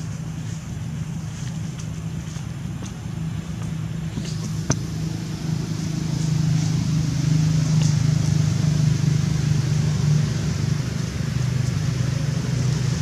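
A steady low motor drone, like a vehicle engine running nearby, growing louder about halfway through, with one sharp click a little before.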